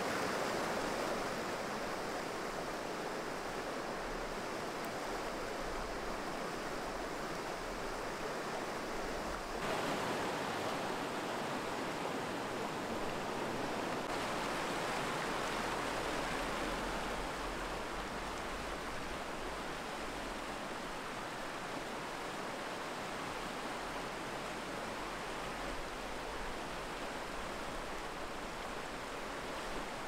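Mountain stream rushing steadily: an even wash of running-water noise, a little louder from about ten seconds in.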